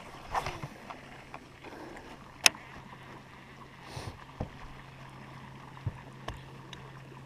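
Low steady hum of a bow-mounted electric trolling motor running, starting about a second in. A single sharp click, the loudest sound, comes a little after two seconds in, with a few fainter ticks around it.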